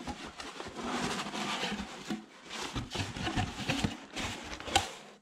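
Cardboard box being opened by hand: the flaps scrape and rustle as they are pulled free and folded back, with many small clicks and one sharp snap near the end.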